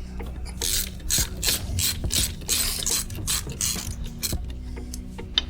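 Hand ratchet wrench clicking in runs, a few clicks a second, as the two bolts holding the rear brake pads in a Ural sidecar motorcycle's single-piston caliper are undone.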